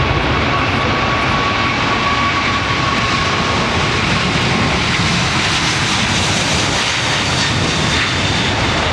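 Airbus A380's four turbofan engines at takeoff thrust during the takeoff roll and rotation: a steady, loud rush of jet noise. A thin high whine sinks slightly in pitch over the first few seconds.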